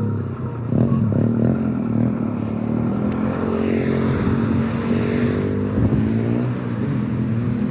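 Small motorbike engine running with a steady buzz like a little lawnmower, its pitch shifting slightly partway through.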